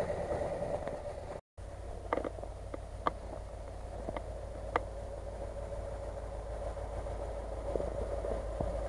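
Range Rover's engine running steadily at low revs as the SUV crawls over snow, with four or five sharp clicks in the first half. The sound drops out for an instant near the start.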